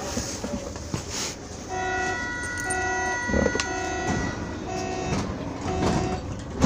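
Berlin U-Bahn train running on the U9, with steady high electrical tones over the rumble and a lower tone that pulses on and off about once a second. A low thump comes near the end.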